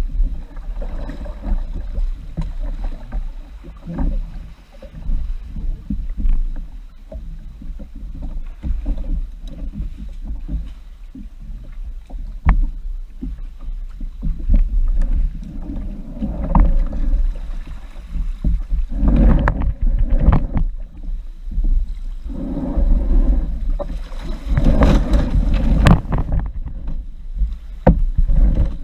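Water sloshing and splashing against a fishing kayak's hull as it moves through shallow water, over a steady low rumble of wind on the microphone. The splashing grows louder in the second half.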